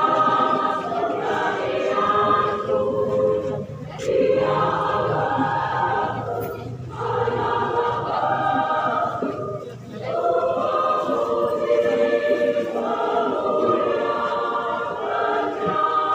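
Women's choir singing in parts, in sustained phrases with short breaks between them, the last phrase held longer.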